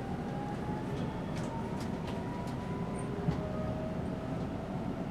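Cabin noise of a JR Shikoku 8000 series electric train under way: a steady rumble with a faint whine that rises slightly in pitch, and a single short knock a little over three seconds in.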